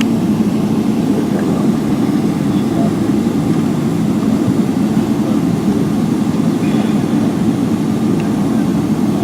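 Steady low rumble of cabin noise inside a Boeing 777-300ER with its engines running.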